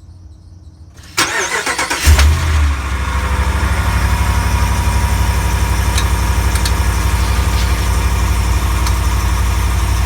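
2020 Ram 1500 pickup starting: the starter cranks with a sudden jolt about a second in, the engine catches and flares a second later, then settles to a steady idle. This is the start-up that comes with a clunk the owner places at the driveshaft.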